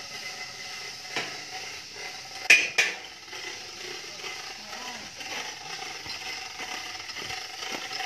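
Steady background hiss with a few sharp clicks: a light one about a second in, then two loud ones in quick succession about two and a half seconds in.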